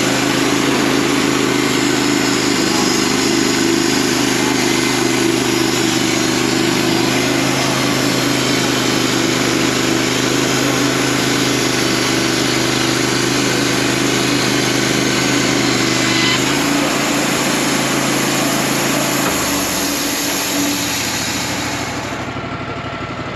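Engine of a piece of equipment running steadily and loudly, its pitch shifting about 16 seconds in, then dropping and winding down over the last few seconds.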